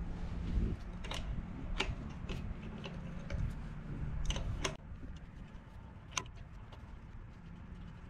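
Adjustable wrench and unicycle pedal clinking as the old pedal is loosened off the crank: a handful of sharp, separate metallic clicks, spaced irregularly.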